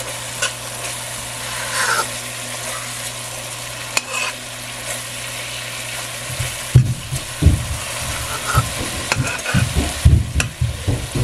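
Curry paste and sliced onions sizzling gently in a pot on low heat while a slotted metal spoon stirs and scrapes through them, cooking the mixture down until its water dries up. From about halfway, a run of irregular dull low thumps joins the stirring.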